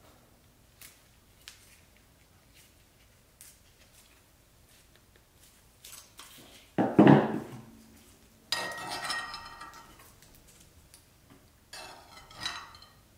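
Pliers and a thin nickel strip knocking and clinking against a glass jar and a tabletop. A heavy knock comes about seven seconds in, then a ringing metal-on-glass clink, and another clink near the end.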